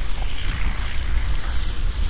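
Wind buffeting the microphone in a snowstorm: a steady, gusting low rumble with a rushing hiss over it.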